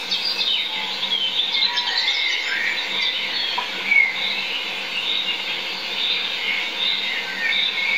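Forest bird chorus: many wild birds calling at once, a steady tangle of overlapping chirps, trills and short whistles.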